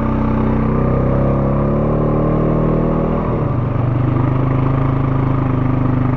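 Honda ATV engine working hard under load while it tows another ATV out of deep water on a tow rope. Its pitch sags slowly for the first three seconds or so, then settles into a steady, lower drone about halfway through.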